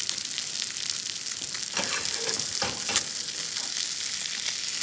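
Breadcrumbed sardines sizzling in hot butter in a frying pan, a steady hiss, while they are basted with a metal spoon; several sharp clicks of the spoon against the pan about two to three seconds in.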